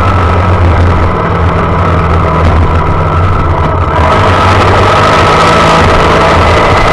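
Honda Monkey's small single-cylinder four-stroke engine running while riding, heard close up with wind noise on the microphone. The sound thins out about a second in and comes back fuller about four seconds in, as if the throttle eases off and then opens again.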